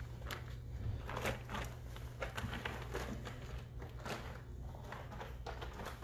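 Wood pellet litter crunching and shifting under a Great Bernese puppy's paws as it walks about in the litter box: a run of irregular small clicks and crackles, over a steady low hum.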